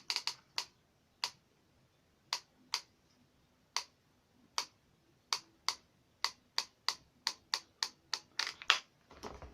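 A series of sharp, dry clicks at an uneven pace, roughly twenty in all: a few scattered ones at first, coming faster from about halfway through, with a quick run near the end.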